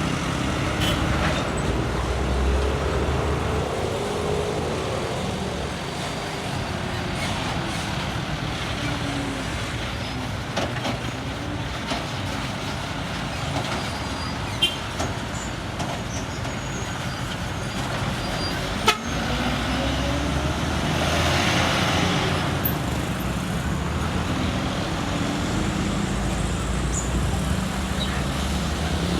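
Road traffic: vehicle engines running and passing, with the occasional horn toot.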